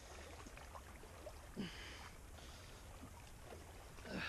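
Faint sloshing of water as someone wades through a shallow river, with two brief louder sounds, one about a second and a half in and one near the end.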